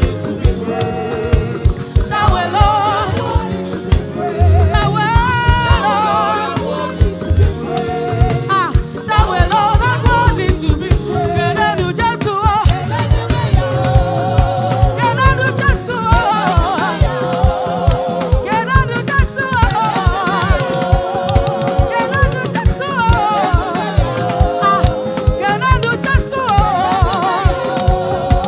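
Gospel choir singing praise and worship music with a steady drum beat; the sung lines waver with vibrato.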